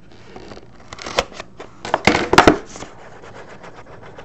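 Shrink wrap being cut and pulled off a cardboard trading-card box: a few scrapes, snips and crinkles, loudest around two seconds in, along with handling of the box.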